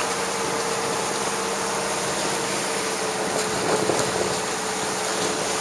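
Motorboat engine running with a steady hum, over a constant rushing noise of wind and water.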